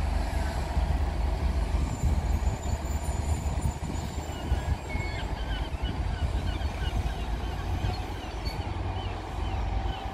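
A train at a station platform, giving a steady low rumble, with faint short high squeaks from about three seconds in.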